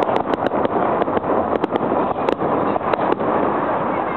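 Fireworks display: aerial shells and fountains going off, many sharp cracks and bangs in quick, irregular succession over a steady rushing noise.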